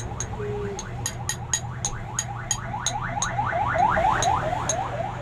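Electronic alarm sounding a rapid series of rising chirps, about five a second, swelling to its loudest about four seconds in and then easing, with regular high ticks and a steady low hum underneath.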